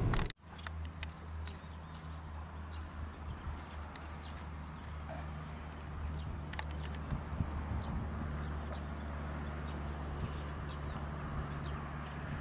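Outdoor ambience in a grassy field: insects keep up a steady high-pitched drone, which steps up slightly in pitch about halfway through. Under it runs a low steady hum, with scattered faint ticks.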